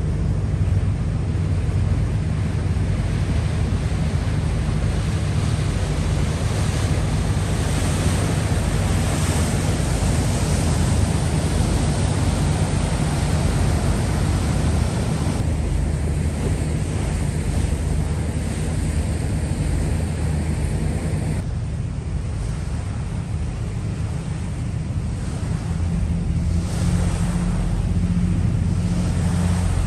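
Harbour ferry's engine running steadily as a low hum under the rush of water along the hull, with wind buffeting the microphone on the open deck.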